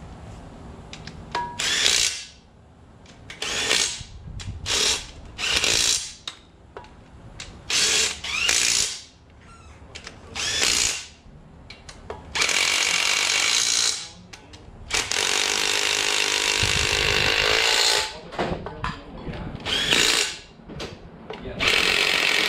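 3/8-inch cordless impact gun running bellhousing bolts into a transmission case in a series of short bursts, with two longer runs of about two and three seconds in the middle. The bolts are only being snugged down, to be torqued to spec with a torque wrench afterwards.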